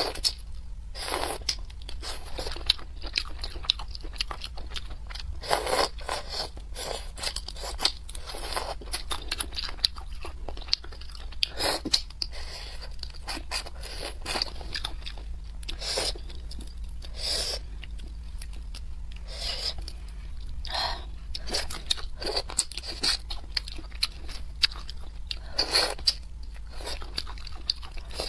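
Close-miked biting and chewing of spicy crayfish tails: short, irregular crunches over a steady low hum.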